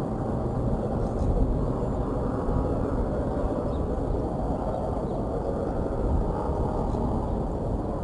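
Steady low outdoor rumble of ambient noise, even in level throughout.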